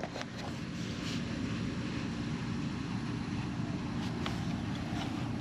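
A steady low rumble with a faint, even hum under it, and a few faint ticks.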